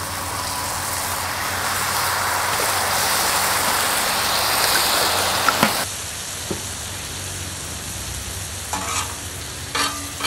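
Beef and broccoli sizzling in a hot wok as stir-fry sauce is added and mixed in. The sizzle swells over the first few seconds, then drops suddenly to a quieter sizzle about six seconds in, with a few short clicks of a utensil on the wok near the end.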